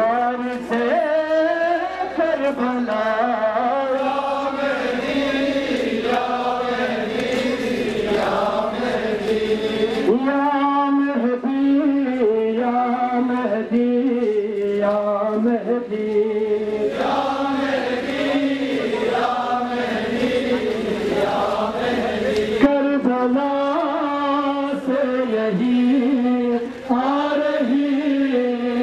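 Men chanting a Shia mourning lament together, their voices carried over horn loudspeakers.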